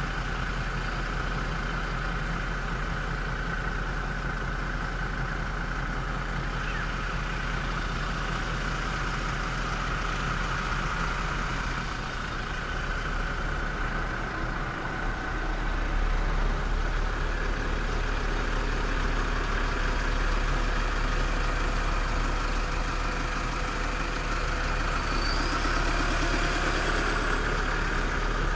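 Vehicle engine idling steadily, its low hum getting somewhat louder about halfway through.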